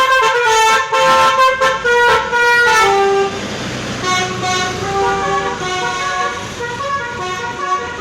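A bus's basuri musical air horn playing a quick melody of short horn notes, loud for about three seconds and then fainter, with the bus's engine and tyre noise underneath.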